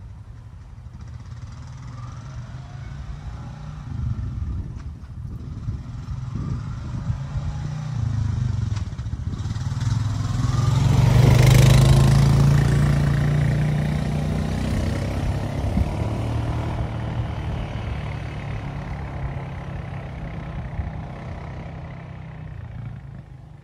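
2025 Honda Rancher 420 ATV's single-cylinder engine running as the quad drives up, passes close by about halfway through, and fades away.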